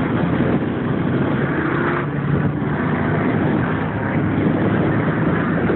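Off-road race vehicle's engine running steadily, with a dense rush of rattle and wind noise over it.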